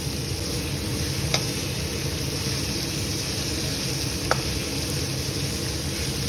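Steady sizzling of food cooking in a pan on the stove, with two short sharp knocks, about a second and a half in and again past the four-second mark, like a utensil tapping the pan.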